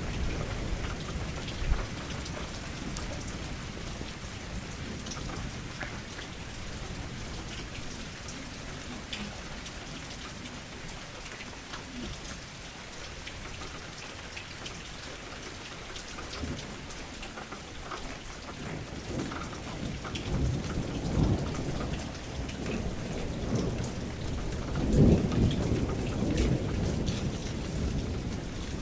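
Steady heavy rain falling on a surface, with low rolling thunder that swells twice in the second half, loudest about three quarters of the way through.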